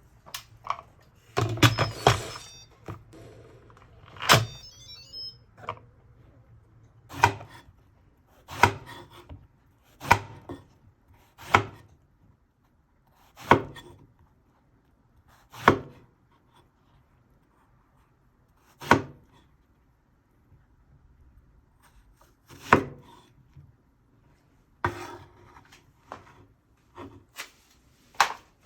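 Knife chopping on a wooden cutting board in slow, single strokes, one every one to three seconds, with a quick run of knocks about two seconds in.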